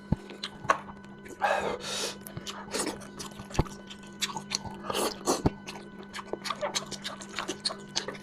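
Close-miked eating of spicy lamb head: wet chewing and lip-smacking clicks at an irregular pace, with a longer noisy slurp or suck about one and a half seconds in.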